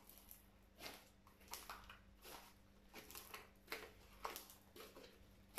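Glue-and-beer slime squelching as hands squeeze and pull it, a run of short, faint wet squishes and crackles about two a second.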